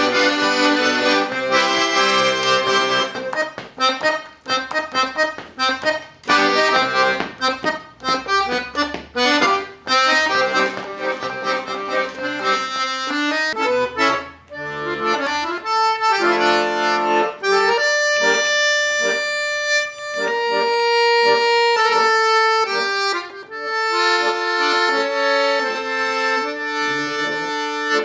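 Accordion being played. The first half is dense chords over a rhythmic bass; from about halfway it turns to slower, held melody notes. The playing stops right at the end.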